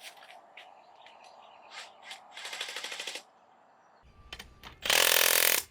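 Two short, loud bursts of an impact wrench hammering on bolts near the end, after a brief rattle about halfway.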